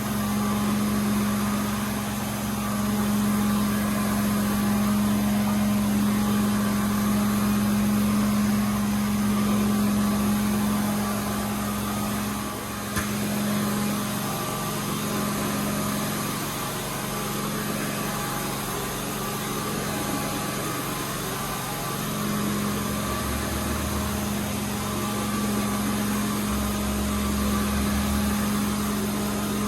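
Carpet cleaning extraction machine running steadily: a constant hum under a broad rushing noise of vacuum airflow, with a single brief click about thirteen seconds in.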